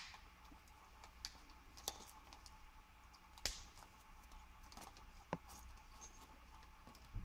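Faint, scattered clicks and taps of small hardware being handled, the pickup's mounting screws and springs, a few isolated ticks a second or so apart.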